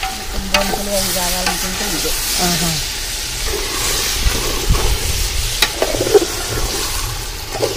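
Country chicken pieces sizzling in hot oil in a large metal pot while a metal spoon stirs them, with a few sharp clinks of the spoon against the pot.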